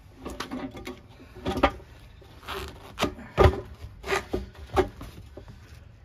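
Irregular knocks, clanks and creaks of a manual bead breaker being set on a tire and levered down against the bead.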